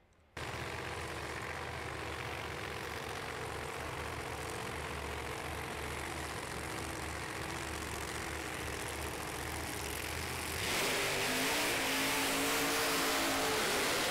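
Drag racing car engines running loudly; the sound cuts in abruptly and grows louder about ten and a half seconds in as the engines rev.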